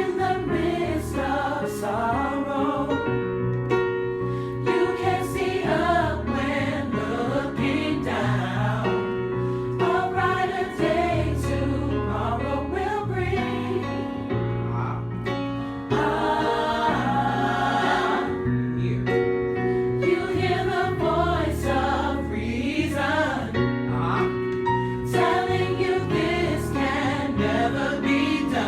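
Gospel choir singing an upbeat song in harmony over sustained low bass notes.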